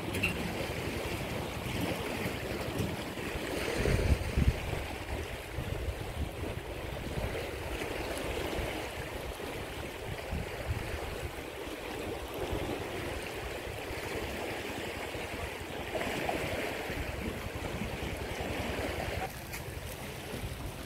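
Fast-flowing floodwater rushing past a sluice gate: a steady wash of water noise, with a brief louder rumble about four seconds in.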